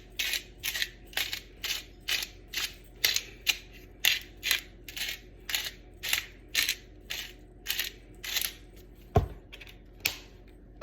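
Pepper mill being twisted, grinding pepper in a steady rhythm of short crunching strokes, about two a second. A single knock near the end.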